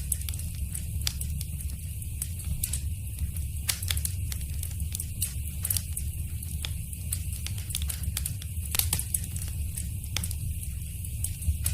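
Wood fire in a fireplace crackling: irregular sharp pops and snaps over a steady low rumble, with a few louder pops near the end.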